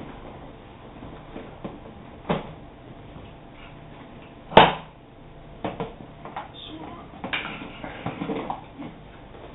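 Handling noises of a few knocks and clatters. The loudest is a single sharp knock about halfway through, followed by a run of smaller clicks and scuffs.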